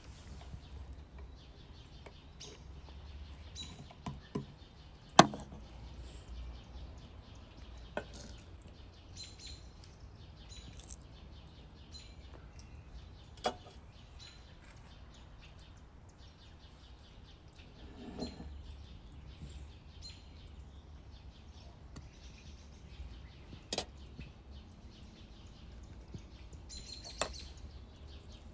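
Scattered sharp clicks and taps of kitchen utensils against plates and the table while food is handled and laid on flatbread, the loudest a single click about five seconds in. Faint short bird chirps are heard in the background.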